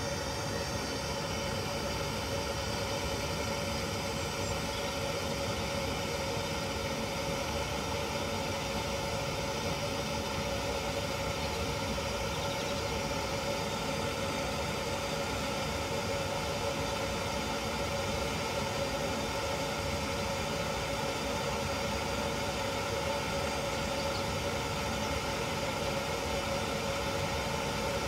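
Rothenberger gas blowtorch burning steadily, a constant rushing flame with a steady tone in it, as it heats a rusted subframe bolt to free its seized captive nut.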